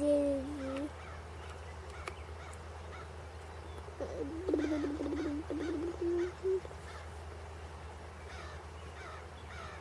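A bird calling: a couple of short calls at the start, then a quick run of short call notes from about four to six and a half seconds in, with faint thin chirps in between.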